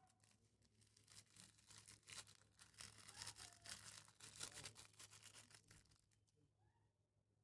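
Crunchy slime full of floam beads being squeezed and worked by hand: faint, dense crackling and popping that is busiest in the middle and thins out near the end.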